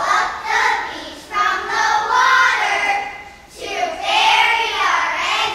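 A choir of young children singing together, in three phrases with brief breaks between them.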